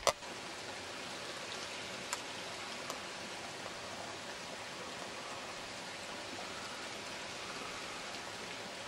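A steady rushing noise, with a sharp click as it begins and another about two seconds in.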